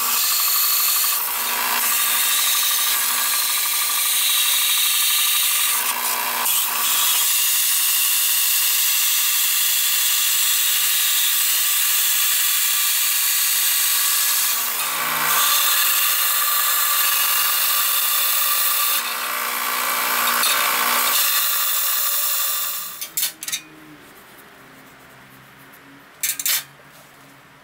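Bench belt sander running with a metal disc held against its belt, a loud steady grinding hiss that eases briefly a few times as the piece is shifted. The sanding stops about 22 seconds in, followed by a few light metallic clicks as steel rods are handled on a steel table.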